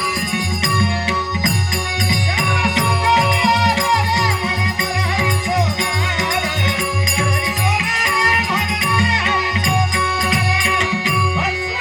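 Traditional Dashavatar theatre accompaniment: fast, steady hand-drum strokes under a sustained harmonium-like tone, with jingling rattle percussion. A wavering melody line enters about two seconds in.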